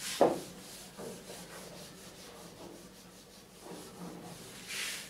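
Eraser wiping a whiteboard in repeated rubbing strokes, with one louder swipe near the end. A brief louder sound comes just after the start.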